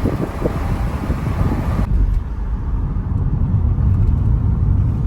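A car driving, its road and engine noise a steady low rumble. About two seconds in, the higher hiss cuts off abruptly and only the rumble remains.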